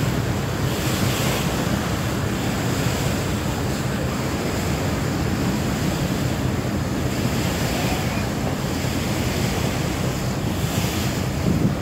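Strong wind buffeting the microphone over the steady rush of choppy river water, with a low rumble underneath and a few brief swells of hiss.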